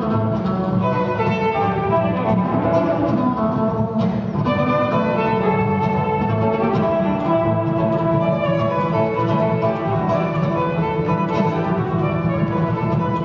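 Jazz violin and upright double bass playing together live: the violin carries a melodic line over the plucked bass.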